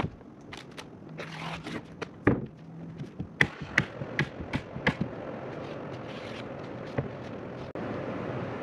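Roofing felt being fastened down on OSB roof sheathing: scattered knocks, then a quick run of about five sharp strikes, a little over two a second, a few seconds in. After that a steady rushing background noise takes over.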